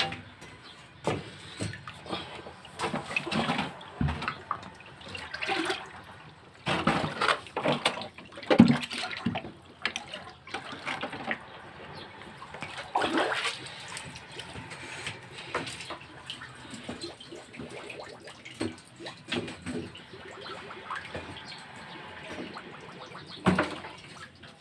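Water splashing and sloshing in irregular bursts, mixed with sharp knocks.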